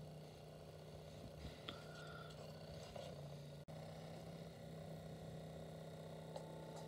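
Faint room tone with a steady low hum, cut off briefly about halfway through; a faint high tone and a few soft ticks come in near the end.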